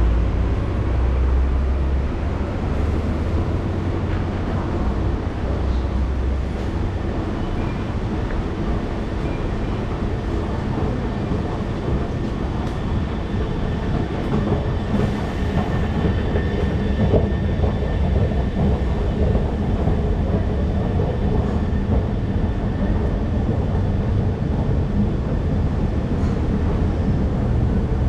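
Steady mechanical rumble of an MRT station, with an escalator's machinery running as it carries riders down. A heavier low rumble fills the first few seconds, and a faint thin whine comes in around the middle.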